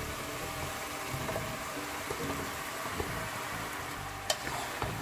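Oil sizzling steadily in a pot of frying onion, carrot and smoked meat as diced raw potatoes are slid in and stirred with a wooden spatula. A sharp click comes about four seconds in.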